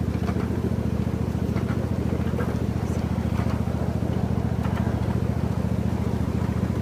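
Park ride train's engine running steadily at a constant speed, a rapid even low pulsing hum as heard aboard the train.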